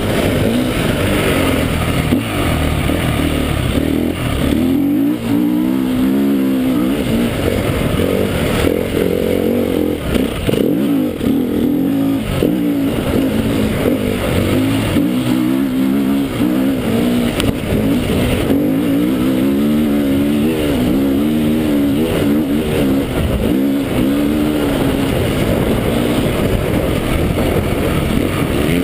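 KTM 350 EXC single-cylinder four-stroke dirt bike engine under hard riding, its pitch climbing and dropping again and again as the throttle is opened and closed through the track's straights and corners.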